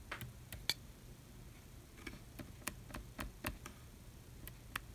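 Faint, irregular small plastic clicks and taps from handling wireless earbuds and their plastic charging case.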